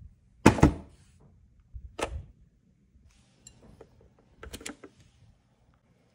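Objects being handled and set down during food preparation: a few sharp knocks and clatters, the loudest about half a second in, more around two seconds and four and a half seconds, with small ticks and rustles between.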